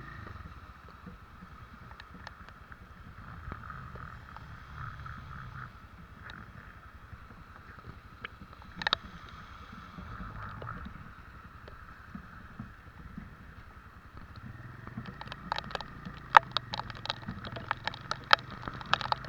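Motorcycle under way, a steady low rumble of engine and wind on the rider's microphone. Near the end, raindrops begin striking the microphone in a run of sharp ticks.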